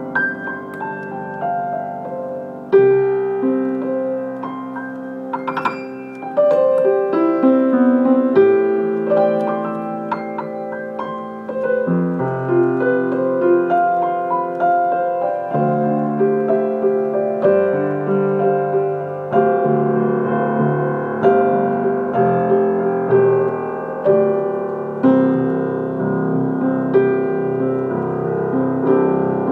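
Solo piano played by hand: sustained, ringing chords under a melody, the chords changing every second or two.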